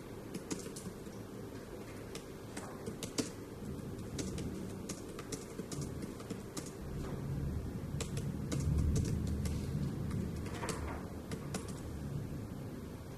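Typing on a keyboard: irregular runs of quick keystrokes. A low rumble swells underneath about eight to ten seconds in.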